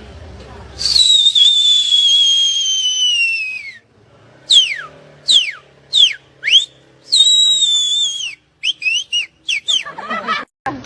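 High, shrill whistling. A long whistle slides slowly downward for about three seconds, then comes a series of quick whistles swooping steeply down, another held whistle that dips at its end, and a fast run of short whistles near the end.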